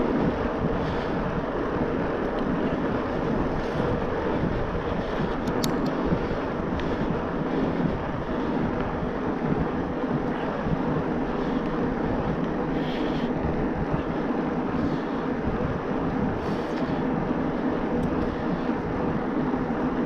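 Steady wind rush and riding noise on an action camera's microphone from an e-mountain bike moving along, with a few faint ticks; the Bosch Performance Line motor is hardly audible.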